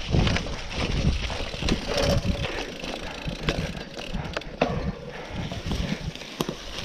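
Cyclocross bike ridden over a dirt forest singletrack covered in dry fallen leaves: the tyres rolling and rustling through the leaves, with irregular clicks and rattles from the bike over bumps and a low rumble.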